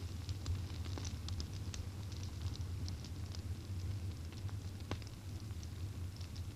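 Small fire burning, with irregular crackles and pops and one sharper pop about five seconds in, over a steady low hum.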